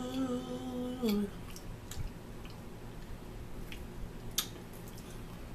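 A voice holds one sung note for about a second, then forks tap on ceramic dinner plates in a few scattered clicks.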